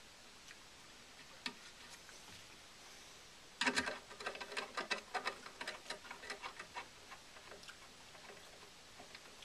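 A 6 mm nut driver working a subchassis spring-mount nut on a Thorens TD-125 turntable: a single light click, then after a few quiet seconds a run of sharp metallic clicks, several a second, tapering off after about four seconds.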